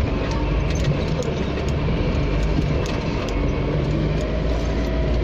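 An off-road 4x4 running steadily under way, with a constant low rumble and scattered clicks and knocks throughout.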